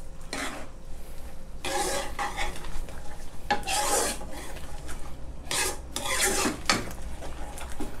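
Metal ladle stirring and scraping a thick salted-egg-yolk sauce around a non-stick frying pan, in slow repeated strokes about every one to two seconds.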